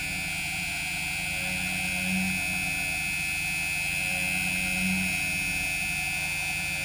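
Doosan Lynx 220 LY mill-turn lathe milling a small aluminum sprocket: a steady high-pitched whine from the cutting, with a lower swell about every two and a half seconds, three times.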